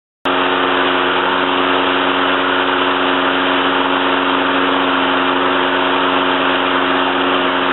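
Briggs & Stratton Quantum 35 single-cylinder four-stroke lawnmower engine running steadily at a constant speed. The sound cuts in abruptly just after the start.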